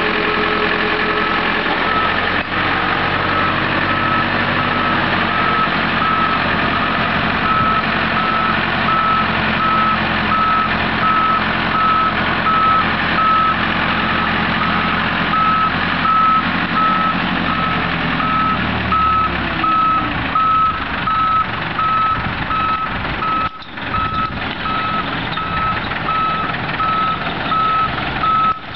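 Travel lift's motion alarm beeping in a steady, evenly spaced on-off pattern over its running engine. About two-thirds of the way through, the engine's pitch falls away and fades, and the beeping carries on alone.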